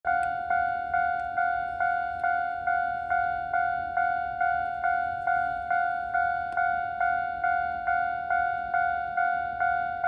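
Japanese level crossing warning bell ringing in a steady, even ding-ding, a little over two strokes a second, each stroke a clear tone that fades before the next. It signals that a train is approaching the crossing.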